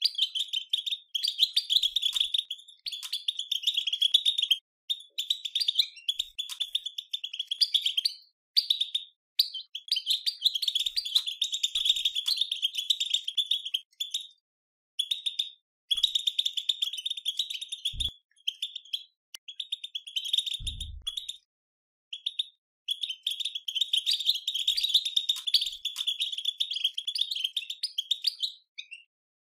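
European goldfinch batbata: rapid, high twittering chatter in runs of one to three seconds with short breaks, a call used to stir caged goldfinches into song.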